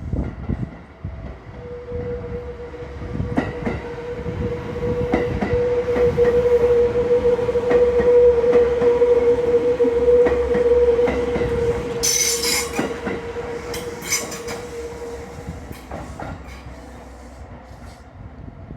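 Seibu New 101 series electric train running by, its wheels clicking over rail joints as the sound swells and fades. A steady whine sounds through most of the pass, and a short hiss comes near the end.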